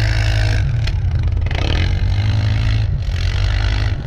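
Timbersled snow bike's engine revving hard in three bursts of throttle, each with a loud rushing hiss, with brief drops in between.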